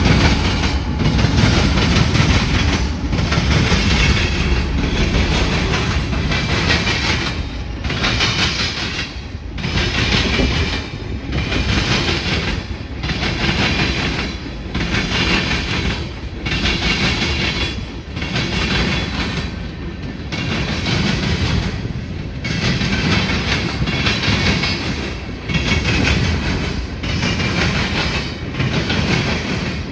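Freight train rolling past, its tank cars and hopper cars clacking over the rails in a steady rhythm, about one surge every second and a half.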